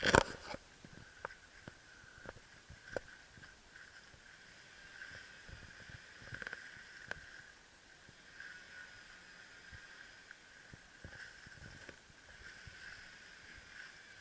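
Footsteps and rustling of dry leaves and twigs on a forest floor, with a loud brush of vegetation right at the start and scattered crackles after it, over a steady high chirring of insects.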